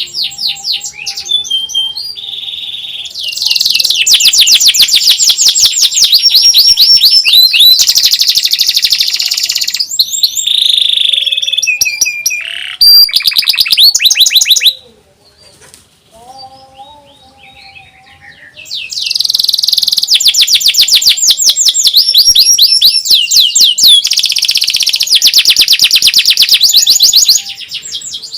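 Domestic canary singing long, fast trills of rapidly repeated high notes. The song pauses for a few seconds about halfway through, then resumes.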